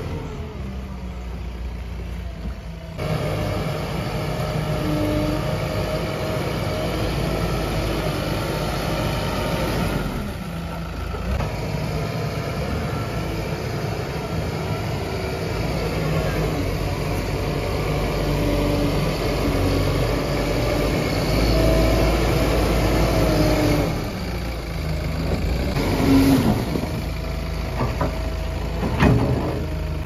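Backhoe loader's diesel engine working under load as the front bucket pushes soil and stones. It revs up about three seconds in and eases off briefly twice, with a few sharp knocks near the end.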